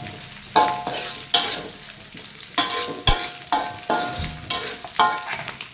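Metal spatula scraping and striking a wok about eight times, the wok ringing briefly after each stroke, over the sizzle of small dried anchovies frying in oil.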